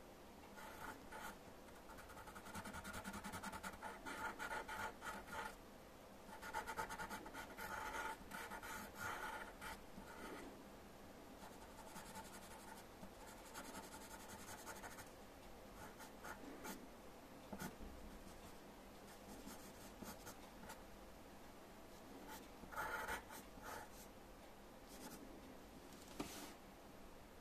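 Graphite pencil scratching on paper in quick short strokes, busiest through the first ten seconds or so, lighter after, with another short burst near the end.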